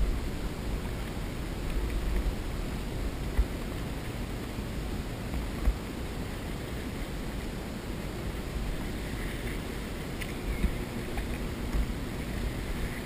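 Steady wind rumble on the microphone mixed with water noise around an inflatable kayak, with a few light knocks.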